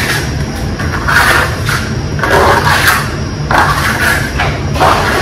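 Steel trowel scraping and spreading wet cement base-coat plaster on a wall in a series of uneven strokes, about one a second.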